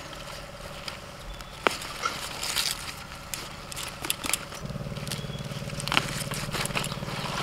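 Long red radishes being pulled out of dry soil by hand, with roots tearing free and clods crumbling and pattering down in a run of small crackles. A steady low mechanical hum sits underneath, louder from about halfway through.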